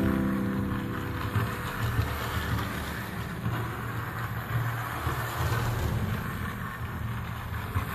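Toy train from a Ben 10 Protector of Earth track set running along its plastic track: a steady mechanical whir over an uneven low rumble.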